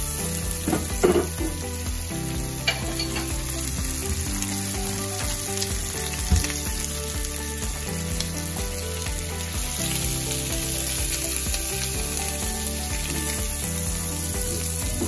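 Asparagus spears sizzling in butter in a nonstick frying pan, a steady frying hiss. Metal tongs turning the spears give a few sharp clicks against the pan, about one second in, near three seconds and a little after six seconds.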